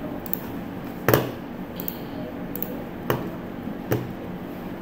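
A few sharp computer mouse clicks, the loudest about a second in and two more about two and three seconds after it, over a steady low room hum.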